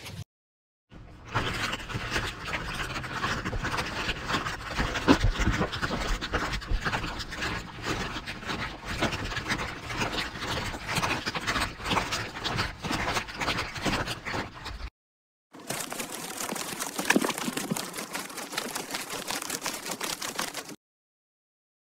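Plastic rattle shaken steadily, a dense rapid clattering altered by a voice-changer effect. It stops dead for a moment just after the start and again around fifteen seconds in, and cuts off shortly before the end.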